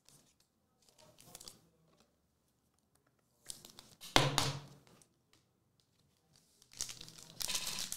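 Trading cards being handled and set down on a mat, with light taps and a sharp knock about four seconds in. Near the end comes the crinkle and tear of a foil card-pack wrapper being ripped open.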